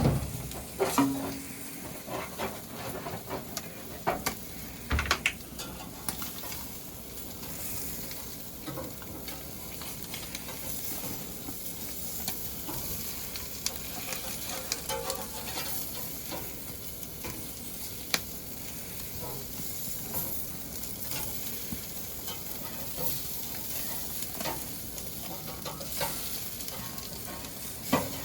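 Oiled whole sardines sizzling on a hot grill grate: a steady hiss, with scattered clicks and taps as the fish are turned, and a few louder knocks in the first second.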